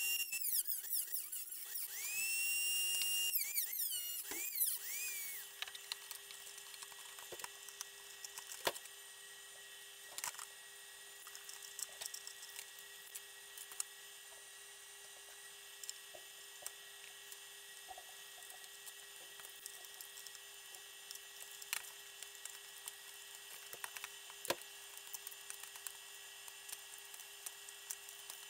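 Handheld rotary tool with a small cutoff wheel cutting into a plastic radio housing: a high whine that rises and falls in pitch as the tool spins up, bites and runs down, stopping about five seconds in. After that, only occasional light clicks and knocks as the housing is handled.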